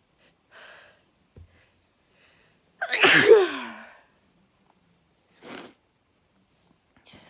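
A quick breath in, then one loud sneeze about three seconds in, its voiced cry falling in pitch as it trails off. A short breathy sound follows a couple of seconds later.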